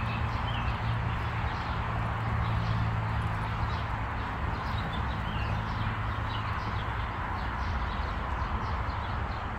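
Footsteps on an asphalt path over a steady rush of distant traffic, with a few short bird chirps.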